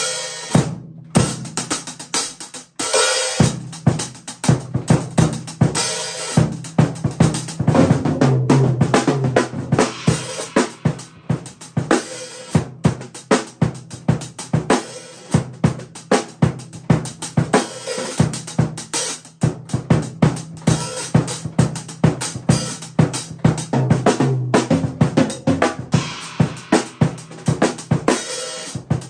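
Drum kit played with sticks: a steady beat on bass drum, snare and cymbals, with a short break about a second in.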